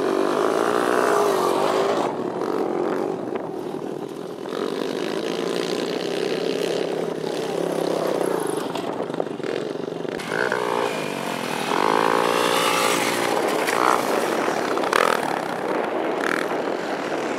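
Small youth dirt bike engines running and revving on a motocross track, the pitch rising and falling with the throttle as the bikes pass and pull away.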